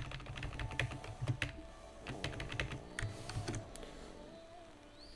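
Typing on a computer keyboard: quick runs of keystrokes while code is edited, thinning to a few scattered key presses after about four seconds.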